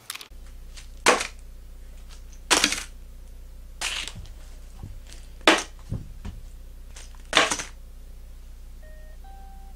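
Handling noises: sharp knocks and crinkles as a plastic mailer package is set down on a wooden desk, five loud ones a second or two apart, over a steady low hum. Guitar music comes in faintly near the end.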